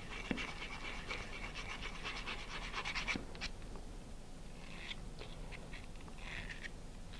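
Sandpaper scratching as a cut launch-lug tube's end is rubbed on it to clean it up: quick, rhythmic scratching strokes for about three seconds, then a few shorter bursts of scratching.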